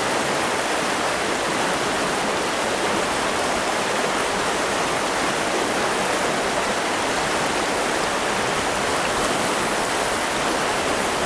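Trout stream rushing steadily over a rocky riffle.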